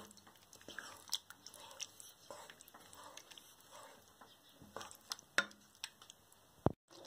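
A spatula stirring thick curry gravy in a kadhai: faint scraping with a few light, scattered taps of the spatula against the pan.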